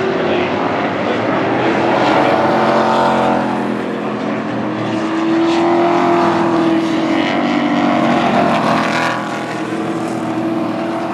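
Pro Truck race trucks' engines running at racing speed around an oval. The engine notes swell and bend in pitch as trucks pass close, about two, six and nine seconds in.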